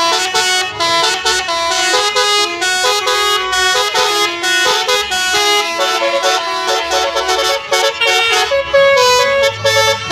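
Bus telolet horn, a multi-trumpet 'basuri' horn, playing a quick tune. Several horn notes sound together and change pitch in rapid steps without a break.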